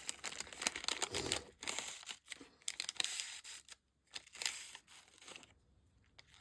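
Crinkly packaging rustled and crumpled by hands struggling to open a small pouch, with many small scratchy clicks. The handling dies down after about five and a half seconds.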